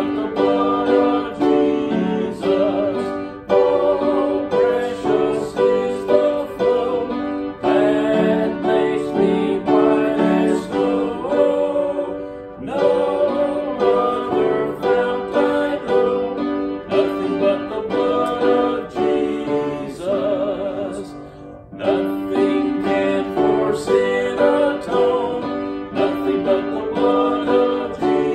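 Hymn music played on piano and guitar, in phrases that twice fall away briefly before going on.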